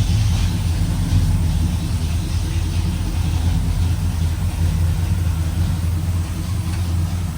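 Pontiac 350 V8 in a 1971 LeMans running at a steady idle, a low, even rumble with no revving.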